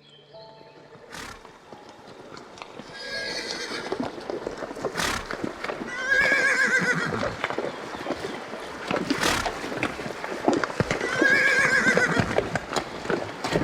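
Horses neighing: wavering, quivering whinnies about three times, the last two loudest, over a steady clatter of hooves.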